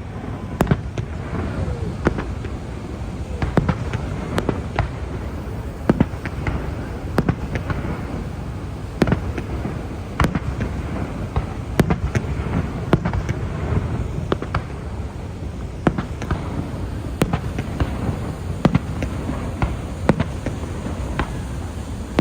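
Fireworks going off: an irregular string of sharp bangs, some much louder than others, over a continuous low rumble.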